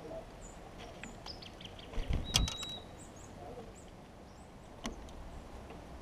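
Small songbirds giving brief, high chirps and call notes at a seed feeder. A quick burst of sharp clicks and knocks about two seconds in is the loudest sound, and there is one more click near the end.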